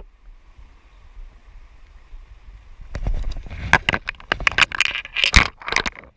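A trout being unhooked and released by hand in a stream: a faint steady rush of water, then from about halfway a loud flurry of splashes, sharp clicks and scraping close to the microphone as the hand works in the water.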